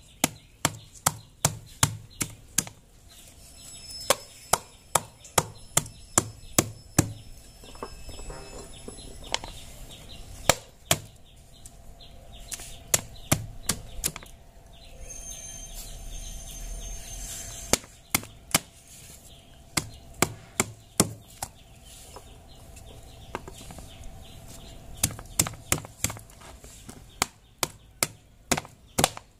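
Wooden pestle pounding and mashing green oleaster fruit in a plastic bowl on a wooden chopping board: runs of sharp thuds, about three a second, broken by short pauses.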